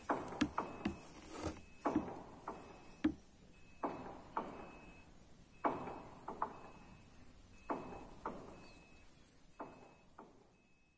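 A run of light, irregular knocks and clicks, about fifteen of them, each with a short ringing tail. Under them a faint high tone repeats in short, evenly spaced chirps.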